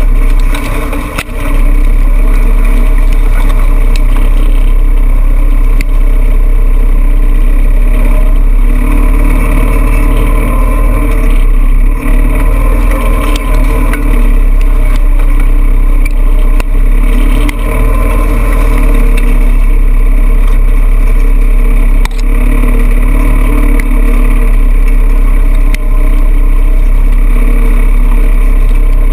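Off-road vehicle's engine running steadily while it drives through dense tall grass, over a loud low rumble, with a few brief knocks.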